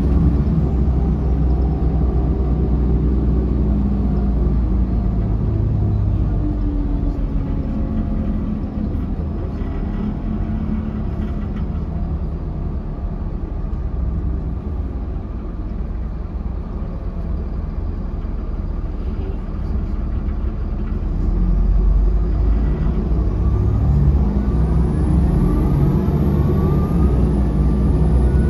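A 2005 Mercedes-Benz OH1728 bus running, heard from inside the passenger cabin: its diesel engine and ZF automatic transmission drone along, easing off through the middle. About three-quarters of the way in it pulls harder again, with a rising transmission whine.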